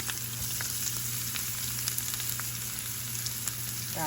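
Chopped onion and garlic frying in hot cooking oil in a pan: a steady sizzle with scattered small pops of spitting oil.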